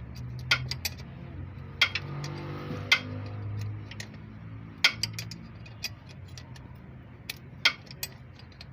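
Hand tools clinking on metal while working on a car engine: irregular sharp metallic clicks, with a quick run of them about five seconds in, over a low steady hum.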